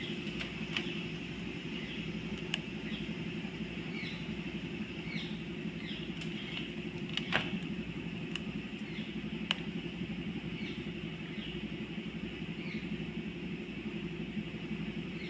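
Steady low background hum, with a few light clicks from wire leads and a diode being fitted to the terminals of a small 12 V battery, plus faint short high chirps.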